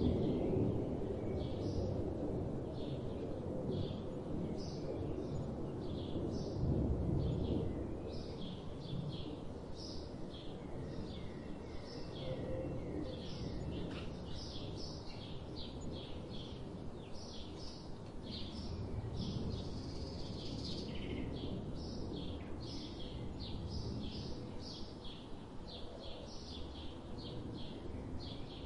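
Small birds chirping in short, quick, repeated high notes, about two a second, over a steady low background rumble.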